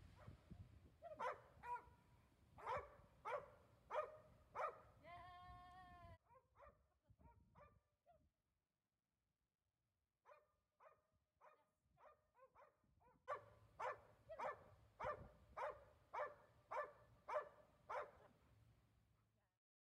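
A dog barking repeatedly in steady runs of one to two barks a second, with one longer wavering cry about five seconds in and a short break in the middle.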